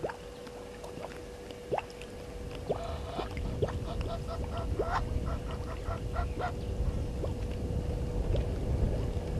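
Egyptian geese honking in rapid series of short, harsh calls, with a low rumble building from about three seconds in.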